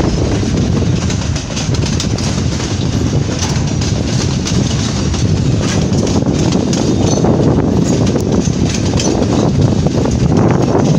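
Freight train of hopper wagons rolling steadily past, a continuous rumble of wheels on the rails with many small clicks and clanks.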